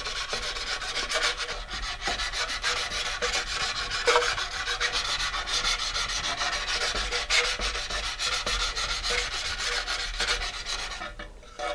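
Sandpaper wrapped around a wooden dowel scrubbing back and forth inside a fiberglass rocket body tube in a steady rasping run that stops just before the end. The slick fiberglass is being scuffed so epoxy can grip.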